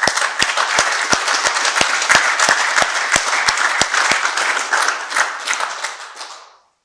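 Audience applauding, with one person's claps close to the microphone, about three a second, over the first four seconds. The applause dies away near the end.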